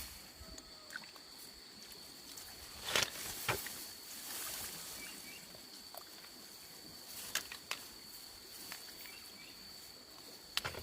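Quiet outdoor ambience: a steady high-pitched whine over a faint hiss, broken by a few sharp clicks or knocks. The loudest come about three seconds in, and two more follow around seven seconds.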